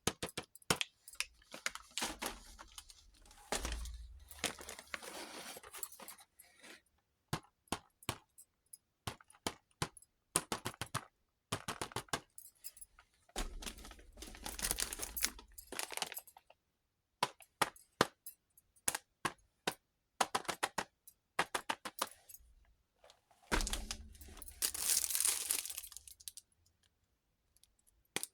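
Small plastic toy pieces clicking and tapping against each other while miniature kitchen toys are unpacked, broken by three longer stretches of plastic packaging being torn and crinkled.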